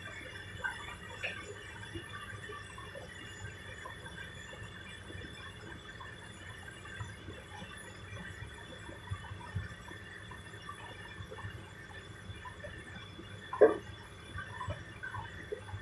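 Hoover and Candy washing machines running early in their wash cycles: a steady hum with scattered small clicks and faint water sounds, and one louder clunk about fourteen seconds in.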